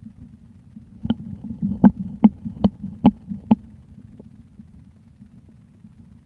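A belly heard close up, gurgling with a quick run of about six sharp pops over a low steady rumble: liquid sloshing in the stomach.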